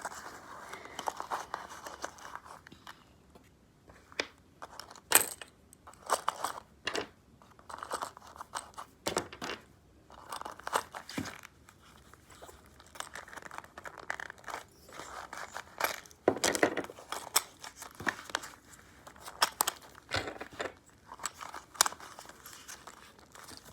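Small toy pieces being handled and packed back into their case: irregular clicks, clacks and short rustles throughout.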